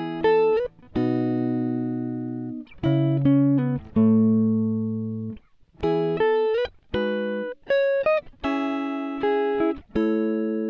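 Background music: a guitar plucking single notes and short chords, each ringing out and fading, with a few notes sliding in pitch. It starts suddenly out of silence.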